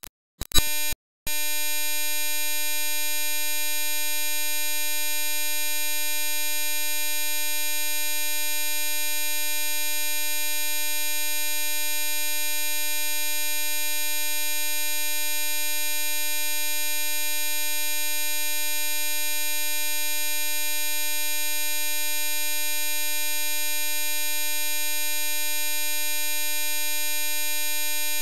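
A steady electronic buzz: one unchanging tone with many overtones, held at a constant level. It starts after a short loud blip and a brief gap about a second in.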